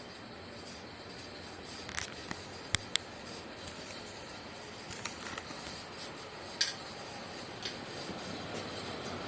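Industrial ceiling fan running with a steady whoosh, broken by scattered sharp clicks and ticks, a cluster of them about two to three seconds in and another near the middle.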